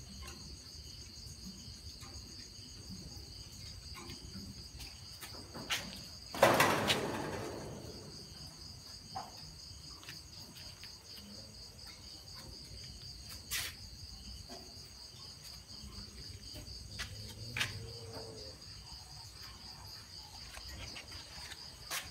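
Crickets chirping steadily in a fast, even pulse. About six and a half seconds in, a loud clatter dies away over a second or so, and there are a few sharp clicks.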